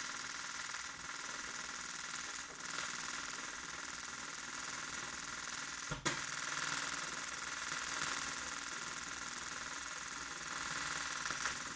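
Argon TIG welding arc running on a thin metal scooter variator cover: a steady buzzing hiss. The arc breaks off for a moment about six seconds in and restarts with a sharp click.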